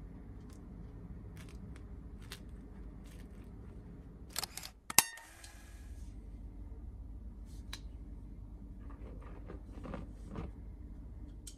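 Soft handling of a baguette loaf with faint crackles of the crust, then a sharp double clack with a short ring about five seconds in, and near the end the soft rustling hiss of flour poured from a glass into a bowl, over a low steady hum.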